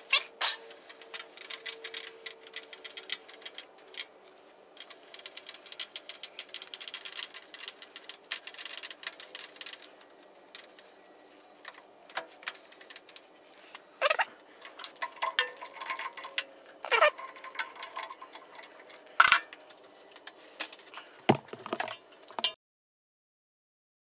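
Scattered metal clicks, clanks and rattles of hand work on a combination lathe-mill as an axle is set up in it and the chuck and handwheels are worked, with a few louder knocks. The sound cuts off abruptly about 22 seconds in.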